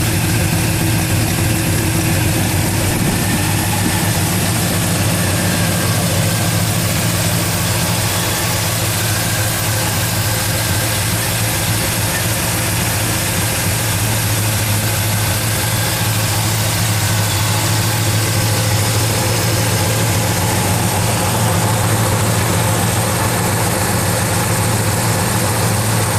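V8 engine of a 1968 GMC pickup, fitted with a Holley 780 vacuum-secondary carburetor and an HHO water-electrolysis generator, idling steadily with a deeper tone on the exhaust.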